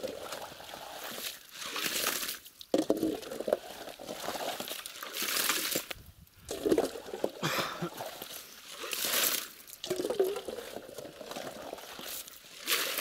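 Long-handled ladle scooping water and bottom silt out of a hole in the ice and pouring it off, again and again every couple of seconds: dredging for bloodworm larvae.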